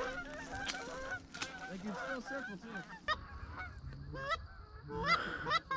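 A flock of Canada geese honking, many short overlapping calls, with a few louder honks from about three seconds in.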